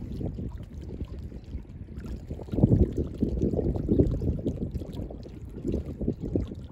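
Wind buffeting a smartphone microphone: an uneven low rumble that comes in gusts and grows louder about two and a half seconds in.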